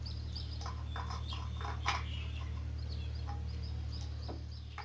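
Small birds chirping here and there in the background, with a few light clinks and knocks as metal engine parts are handled, over a steady low hum.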